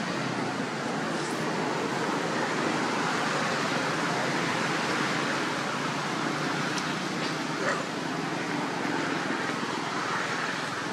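Steady rushing outdoor background noise, with a few faint clicks, the clearest one about two-thirds of the way through.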